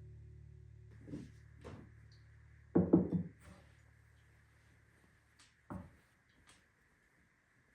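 Acoustic guitar music fading out, then a few short knocks and clicks of objects being handled, loudest in a cluster about three seconds in, over a faint steady hiss.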